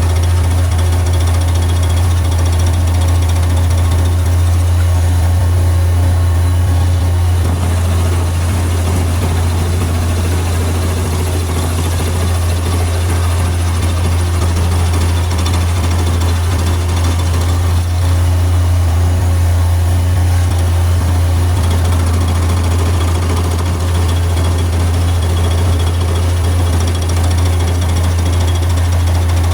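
Bobcat MT100 mini skid steer's 25-horsepower engine running loud and steady under load, driving an SG30 stump grinder wheel chipping into a stump.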